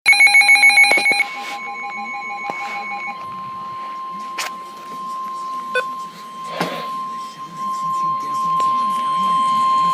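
Emergency Alert System weather warning tones, as on NOAA Weather Radio. First comes about a second of rapid, warbling digital header data bursts. Then a single steady alert tone near 1 kHz holds and grows a little louder near the end, with a few faint clicks.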